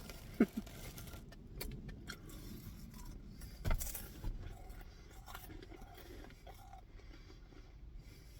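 Eating noises: scattered light clicks and one sharper knock about three and a half seconds in, over a low steady background rumble.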